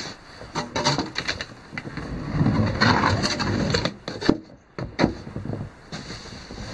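Dog digging and rooting with its face buried in deep powder snow: irregular crunching and scuffing of snow, busiest for a second or two near the middle.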